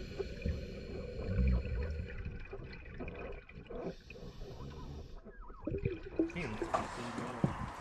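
Muffled underwater sound in a pool: a low water rumble with the hiss and bubbling of scuba breathing through a regulator. Near the end the sound turns brighter and splashier, with sharp clicks.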